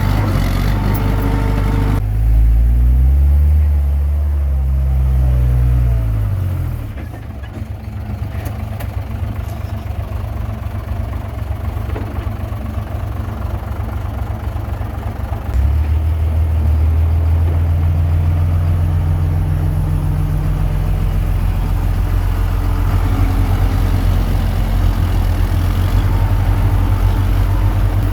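Diesel engine of a Komatsu D21P small bulldozer working. Its speed swings up and down a couple of seconds in, settles lower and quieter, then picks up again about halfway through and holds a steady, louder pitch.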